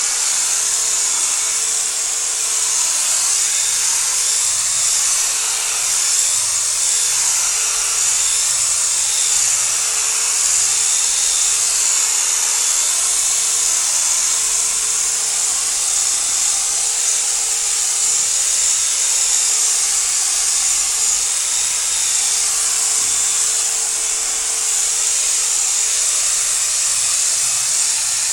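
Electric polisher running steadily with a constant whine, its pad buffing car paint.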